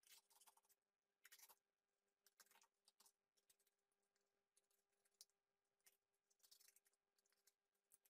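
Very faint scratchy rustles and snips of small cardboard pieces being handled and cut with scissors, coming in a few short bursts over a steady low hum.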